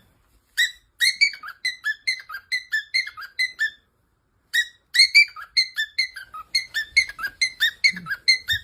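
Pet talking bird whistling a fast run of short, high chirps, about three a second, each dropping slightly in pitch, with a pause of nearly a second midway.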